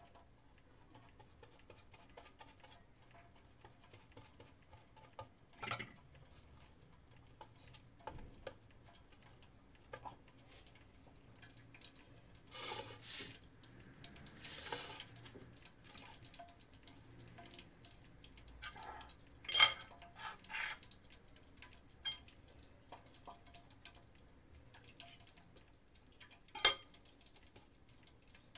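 Scattered light clicks and knocks of kitchenware (plastic plate, pastry brush in its cup, forks) while thin brik pastry sheets are folded and rolled by hand, with a few brief rustles of the pastry. Two sharp knocks stand out, about two-thirds of the way through and again near the end.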